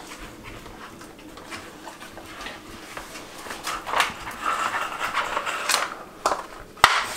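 Rottweiler puppy sniffing and panting while working a Nina Ottosson Dog Tornado, a plastic spinning treat puzzle. In the second half there are several sharp plastic clacks as the layers are knocked and turned.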